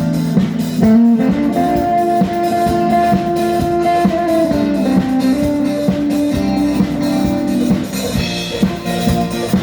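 Instrumental music from a band, with guitar notes held over a steady drum kit beat, played at a sound check.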